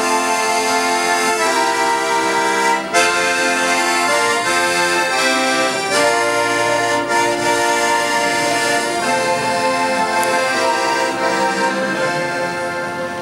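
Piano accordion playing a slow hymn tune alone, in held chords that change every second or two.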